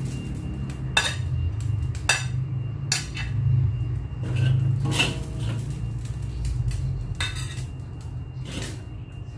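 Spatula scraping and clanking against a wok while stir-fried rice noodles are scooped onto a plate, about six sharp strikes spread out over a steady low hum.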